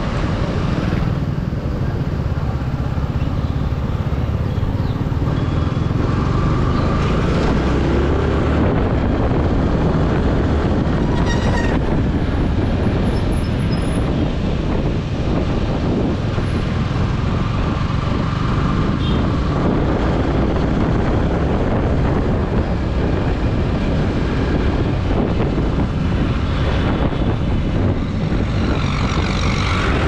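Yamaha R15 motorcycle's single-cylinder engine running steadily at low speed, mixed with the noise of surrounding town traffic.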